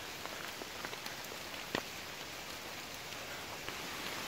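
Heavy rain falling steadily, with scattered single drops ticking close by; the sharpest tick comes a little under two seconds in.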